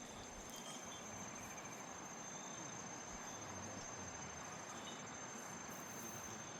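Faint forest ambience: a steady high-pitched insect trill, such as a cricket, over an even background hiss, with a few faint short chirps.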